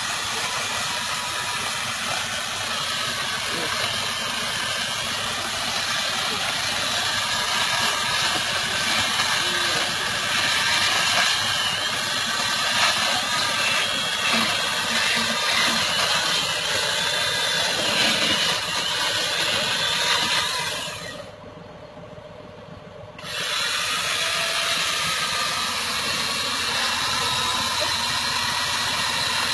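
Chainsaw running and cutting into the trunk of a fallen tree, with a steady mechanical noise that drops away sharply for about two seconds near the end before picking up again.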